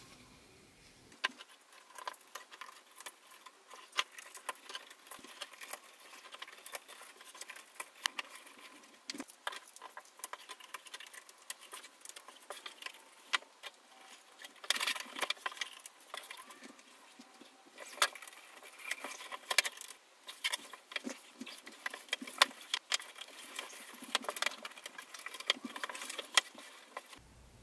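Irregular clicking and rustling of small hard objects being handled, with sharp ticks scattered throughout and busier stretches about halfway through and toward the end.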